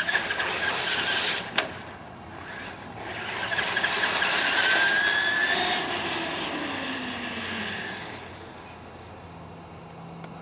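Traxxas E-Maxx electric RC monster truck running on asphalt: high motor and gear whine with tyre hiss in a burst of about a second and a half, a sharp click just after, then a longer, louder run from about three seconds in, its whine rising a little before fading.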